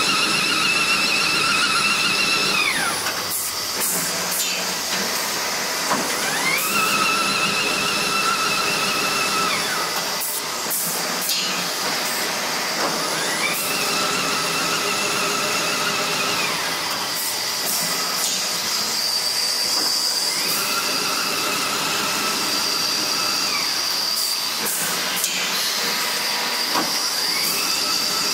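Toilet paper rewinding machine running through repeated winding cycles: about every seven seconds its whine rises, holds steady for about three seconds, then falls away. Clicks come between the runs, over a steady hiss.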